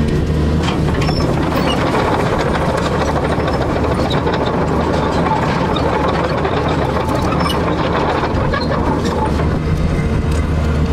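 Excavator's diesel engine running steadily, with rattling and clanking of metal.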